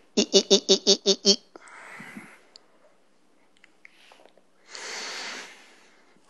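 A person's voice in a quick run of about eight short voiced huffs, then two long breaths, the second near the end.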